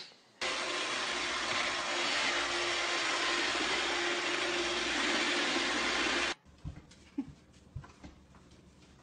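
Robot vacuum cleaner running: a steady whirring noise with a low hum underneath, which cuts off suddenly about six seconds in. A few faint knocks follow.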